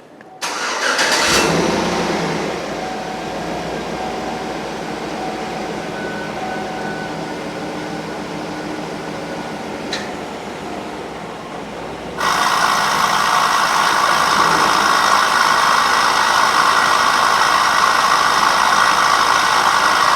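2008 Chevy Suburban engine starting and idling. About twelve seconds in, the air ride suspension's air compressor kicks on with a loud, steady rattle, the fault that has the compressor being replaced.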